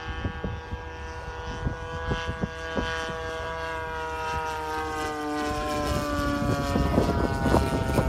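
Engine and propeller of a large radio-controlled scale biplane in flight: a steady, clearly pitched drone that dips a little in pitch in the second half and grows louder toward the end as the plane comes closer.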